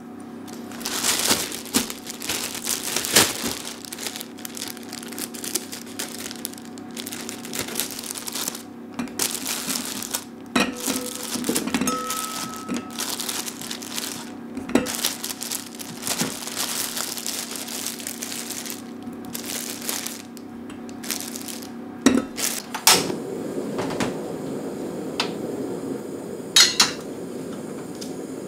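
Close-up crinkling of a plastic bag of new potatoes as it is opened and handled, with potatoes knocking into a stainless steel bowl. A few sharp metal knocks of pots and pans come near the end.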